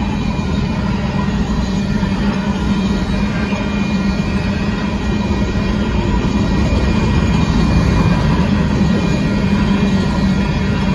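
Covered hopper cars of a Union Pacific grain train rolling past at a grade crossing: a steady, continuous rumble of wheels on the rails.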